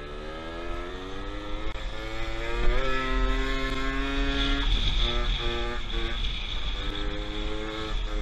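Scooter engine under way, its note rising steadily for the first few seconds as it accelerates, then holding. Around the middle it cuts in and out briefly with the throttle, then runs steady again. Wind rumbles on the microphone underneath.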